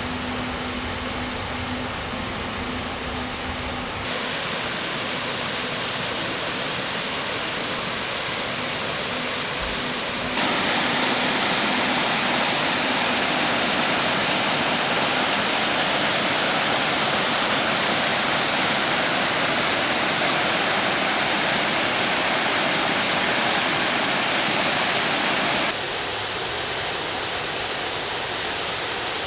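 Creek water cascading and rushing steadily. It gets suddenly louder twice, about 4 and 10 seconds in, and drops back suddenly near the end.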